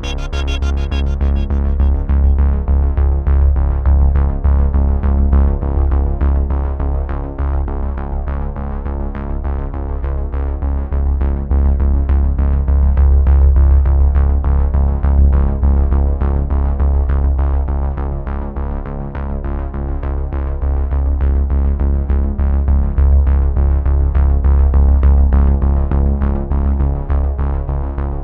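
Background music: an electronic synthesizer and keyboard track with a strong steady bass and a regular beat.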